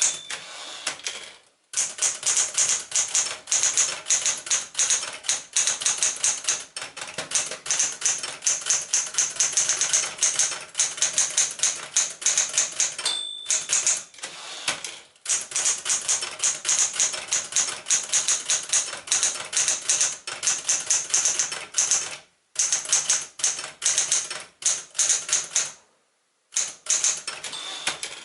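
1968 Smith-Corona Super Sterling manual typewriter being typed on: fast runs of sharp keystroke clacks with a few short pauses, and a brief ringing ping about 13 seconds in.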